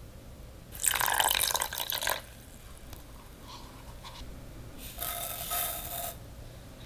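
Water poured into a small aluminium saucepan onto sugar, a splashing pour of about a second and a half. About five seconds in, instant coffee granules are tipped into the pan with a second, shorter rush.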